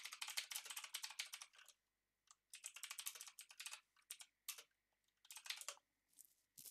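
Computer keyboard typing: two quick runs of keystrokes, then a few shorter bursts and single key presses after a pause.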